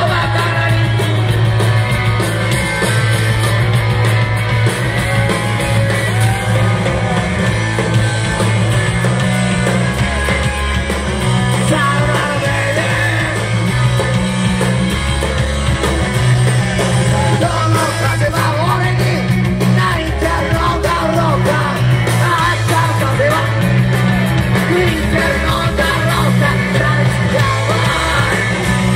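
Live rock and roll band playing loud and without a break: a singer singing into a handheld microphone over electric guitar, bass guitar and drums.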